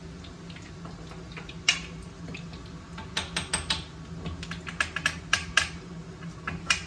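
Scattered sharp clicks and light crackles from a thin, dry cooked flour sheet being handled and rolled into a cone by hand: one click about two seconds in, then a quick run of them from about three to six seconds, and one more near the end. A steady low hum runs underneath.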